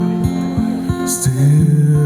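Acoustic guitar music: picked notes about three a second, with a sustained low note coming in about halfway through.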